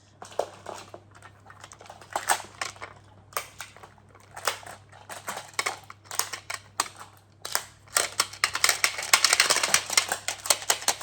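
Magnetic building tiles clicking and clacking against each other as they are taken apart and gathered up. The clicks are irregular and come thick and fast over the last few seconds.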